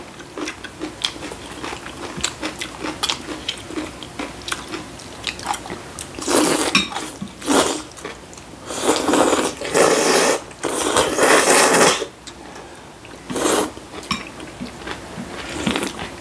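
Kalguksu noodles slurped from bowls in about six long, noisy pulls in the second half, with chewing and light clicks of chopsticks against ceramic bowls before them.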